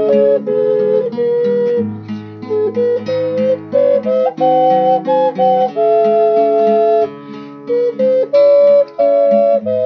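Double ocarina playing a slow melody in two-part harmony, the two voices moving together, over a plucked acoustic guitar accompaniment.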